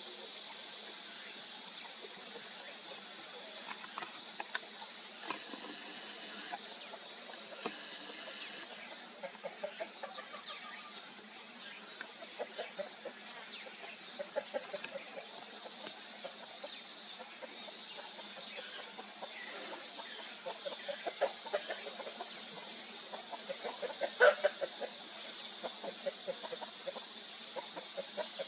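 Chickens clucking in short runs of rapid notes, the loudest run near the end, over a steady high hiss and a thin high chirp repeating about once a second.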